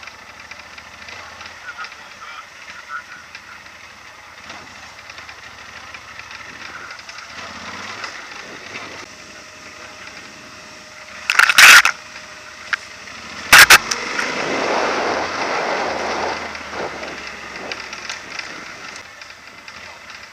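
Yamaha Super Tenere adventure motorcycle rolling down a rough dirt and gravel trail, its tyres crackling over loose stones. Two loud sharp knocks come about eleven and a half and thirteen and a half seconds in, the loudest sounds, followed by a few seconds of louder rushing noise.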